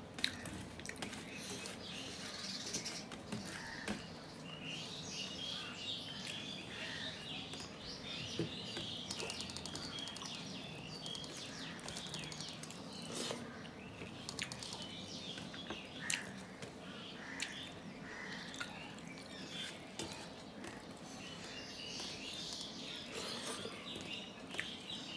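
Fingers mixing rice with curry on a steel plate and chewing, with occasional sharp clicks. Small birds chirp throughout in the background.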